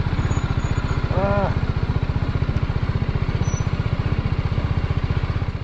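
Motorcycle engine running steadily while riding, a rapid even pulsing under a haze of wind noise on the microphone.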